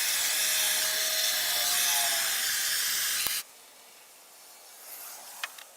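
A steady rushing hiss with a faint wavering tone in it, which stops abruptly about three and a half seconds in, leaving a much quieter stretch with a few faint clicks.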